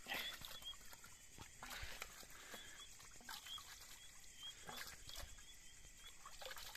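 Steel plates being rinsed and rubbed by hand in shallow water: faint splashing and scrubbing noises. Night insects chirp in the background in a steady run of short, high chirps.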